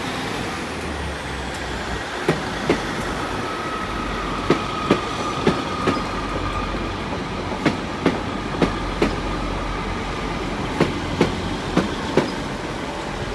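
Two coupled British Rail Class 150 Sprinter diesel multiple units running slowly past under a low diesel rumble. Their wheels click over the rail joints in evenly spaced pairs, one click for each axle of a bogie, with a faint steady wheel squeal through the middle.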